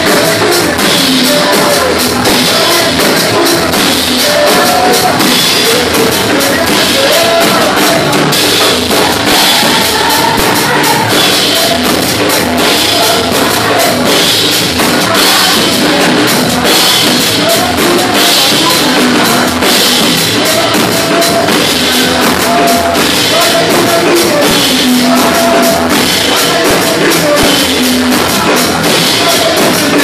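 Live gospel worship music: amplified voices singing over a drum kit and an electric keyboard, with a fast, steady percussion beat.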